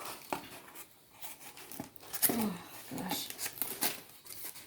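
Packaging tearing and crinkling as a shipping box is opened: a run of short, sharp rips and rustles, with a couple of brief vocal sounds about two and three seconds in.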